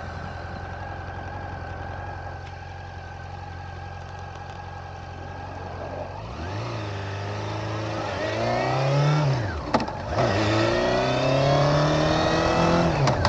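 Honda CB400 Super Four's inline-four engine idling steadily, then pulling away: the pitch rises, drops sharply at a gear change about ten seconds in, and rises again as it accelerates.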